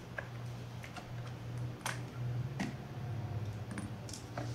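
A handful of small, sharp clicks and taps from a precision screwdriver and hands working on the metal body of a RED Epic-MX camera during disassembly, over a steady low hum.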